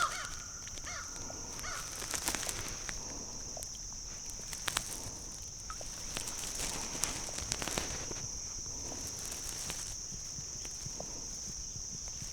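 Outdoor ambience: a steady high-pitched drone with scattered light clicks and taps, like gear and line being handled.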